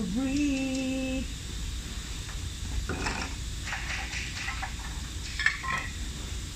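A held sung note from background music ends about a second in; then metal clicks and clattering knocks as the milling machine's lever and clamps are handled, over a steady low hum.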